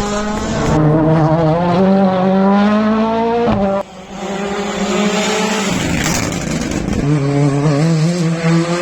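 Rally car's turbocharged four-cylinder engine running at high revs, its pitch climbing and dropping with gear changes and a sharp lift about four seconds in. A stretch of tyre noise follows, and the engine picks up again near the end.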